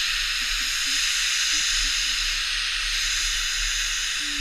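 Steady hiss of skis sliding over snow during a downhill run.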